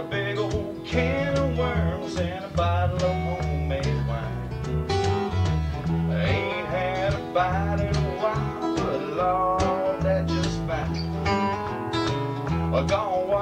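Instrumental break of a live country song: acoustic guitars picking a melody over a bass guitar playing a steady, rhythmic bass line.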